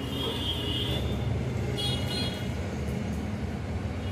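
Steady low rumble of road traffic, with two short high toots in the first half, like distant vehicle horns.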